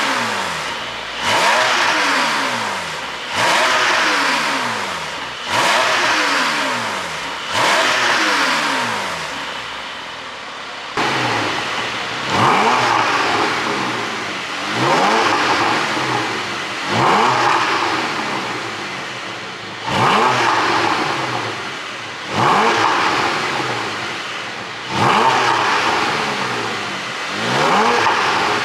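Porsche 718 Boxster GTS 4.0's flat-six engine revved over and over through a fully opened exhaust: about a dozen sharp blips, one every two seconds or so, each falling back in pitch as the revs drop.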